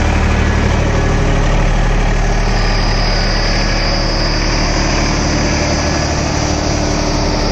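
Tractor diesel engines idling steadily, with a thin high whine joining in about two and a half seconds in.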